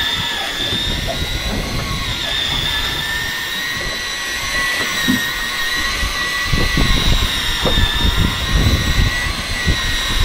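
Electric fishing reel's motor winding in line with a fish on, a steady high-pitched whine that wavers slightly in pitch. Low rumbling gusts join in from about six seconds in.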